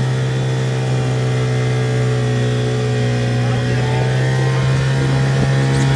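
Mariner outboard motor running steadily at speed, driving a small inflatable boat; one even engine note throughout.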